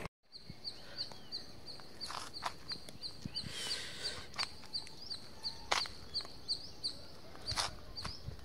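Birds chirping: one high, thin chirp repeated steadily about three times a second, with a few sharper calls now and then.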